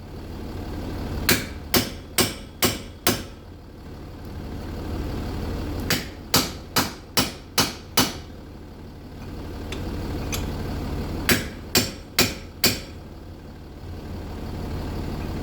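Hammer blows on the seized front wheel hub of a Jaguar XF, in three quick runs of about five, six and four strikes, as the hub starts to break free. A steady low hum runs underneath.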